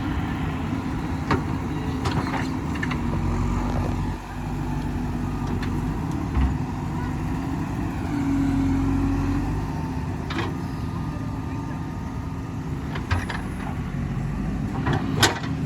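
Excavator's diesel engine running steadily at working speed, its pitch rising briefly about eight seconds in, with scattered sharp knocks and clicks through the run.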